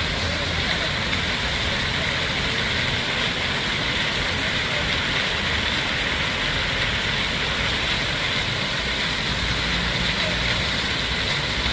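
Water fountain splashing: a steady, even rush of falling water.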